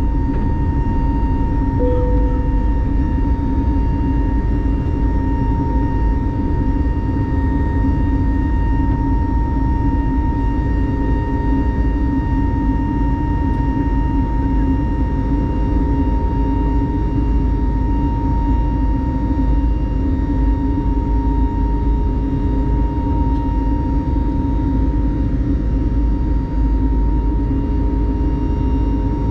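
Twin jet engines of an Airbus A320-family airliner climbing after takeoff, heard inside the cabin as a steady, loud rush with a constant high whine.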